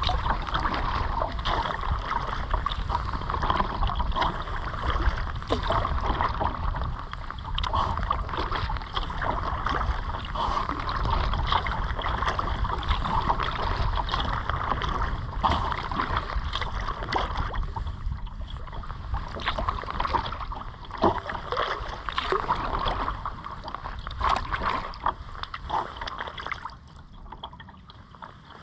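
Kayak paddling: paddle blades dipping and splashing in the water over a steady wash of moving water and a low rumble. It quietens near the end.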